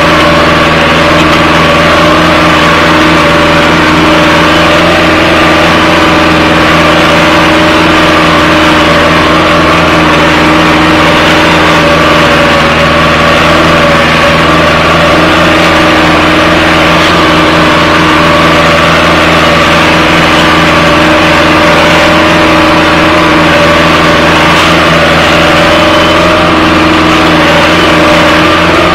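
Diesel engine of an 80/90 tractor running steadily at constant speed under load while it pulls a mouldboard plough through the soil, heard from the cab.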